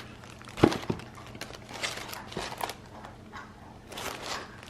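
Paper planner inserts being handled: scattered rustling and light clicks, with one sharper knock about half a second in.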